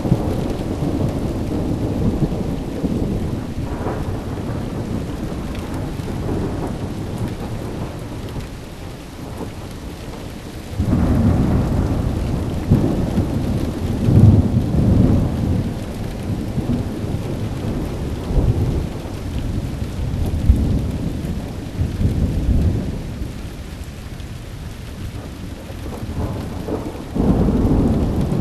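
Thunderstorm: long low rolling thunder over steady rain. A new peal comes on suddenly about eleven seconds in and swells to its loudest a few seconds later; another breaks in near the end.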